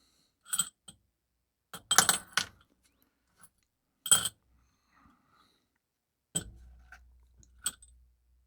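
Steel watch bracelet and clasp parts clicking and clinking as they are handled, a handful of separate sharp metallic ticks. The loudest come about two seconds in and about four seconds in.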